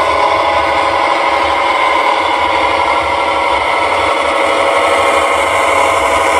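Steady diesel-engine running sound of a gauge 0 Lenz V60 model locomotive as it drives along the track, played through its small onboard speaker so that it has almost no deep bass.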